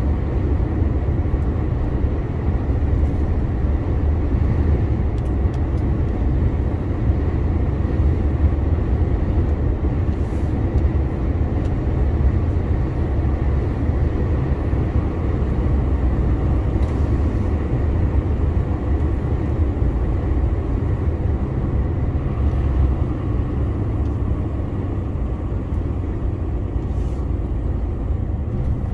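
A 2021 DAF CF 480 6x2 truck driving at steady speed: an even low engine drone mixed with road noise, with no gear changes or other distinct events.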